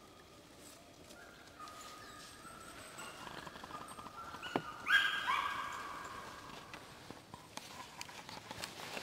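An animal's drawn-out cries in the forest, a string of pitched calls that grow louder and are loudest about five seconds in, then fade away.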